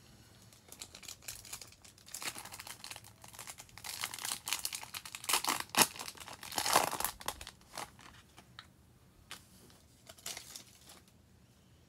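A foil trading-card pack wrapper being torn open and crumpled, a run of irregular sharp crinkling crackles that is loudest a few seconds in. Near the end it dies down to a few light rustles as the cards come out.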